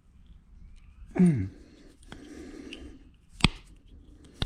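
A short falling vocal sound about a second in, then light rustling and a few sharp clicks, the loudest about three and a half seconds in, as small parts and tools are handled.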